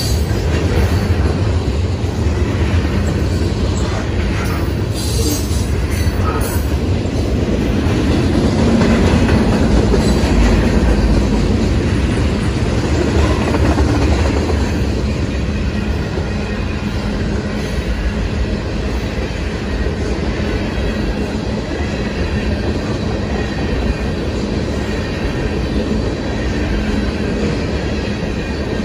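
Freight cars (covered hoppers, then tank cars) rolling past at close range: a loud, steady rumble of steel wheels on rail, with a few brief high-pitched wheel squeals about five to six seconds in.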